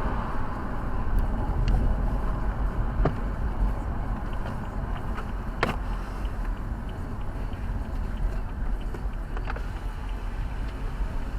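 Steady road and engine noise of a car being driven, heard as a low rumble, with a few sharp clicks at scattered moments.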